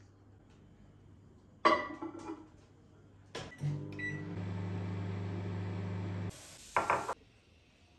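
Microwave oven in use: a clatter and a click, a short beep, then the oven running with a steady hum for about three seconds. The hum stops abruptly and a couple of sharp sounds follow.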